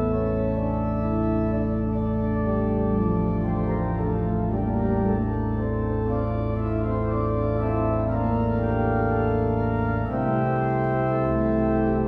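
Church organ playing slow, sustained chords over a held low pedal bass. About ten seconds in the harmony changes and the deepest bass notes drop away.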